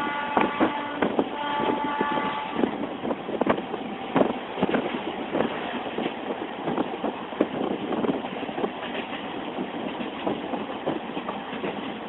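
DEMU train's horn sounding for about the first two and a half seconds. The train's wheels clatter over rail joints throughout as it runs.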